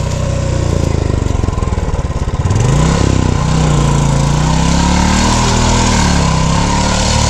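Royal Enfield Classic 350's single-cylinder engine running under load. It revs up about two and a half seconds in and is held high, its pitch wavering, as the bike struggles through thick mud.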